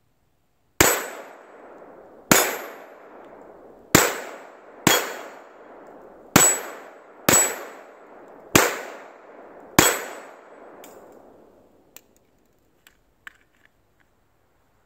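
Pistol fired eight times at an uneven pace, each shot a sharp crack trailing off over about a second. A few faint clicks follow near the end.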